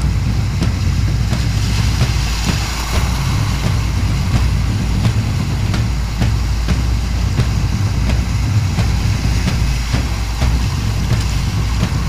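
Whitewater on a river rapid: a steady low rumble of rushing water with frequent short splashes and knocks through it.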